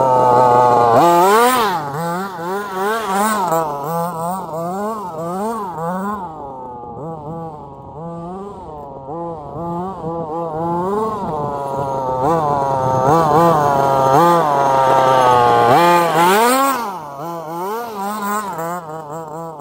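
Small two-stroke engine of a 1/5-scale gas RC Baja buggy, its pitch rising and falling again and again as the throttle is blipped, with a longer high-revving run in the middle that drops away near the end.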